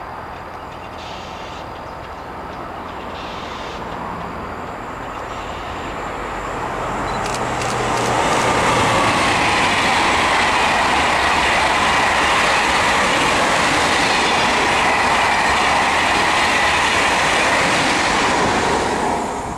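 Ouigo TGV Duplex double-deck high-speed train approaching and passing at speed. It grows louder over the first eight seconds, then holds a steady loud rush of wheels on rail as the cars go by, and cuts off suddenly near the end.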